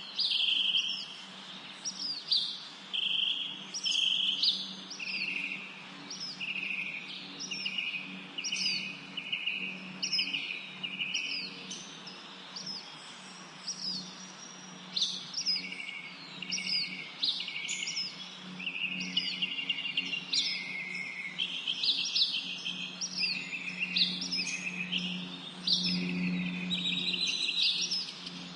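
Birds chirping over and over: quick high notes that slide downward, mixed with buzzy notes, over a steady low hum.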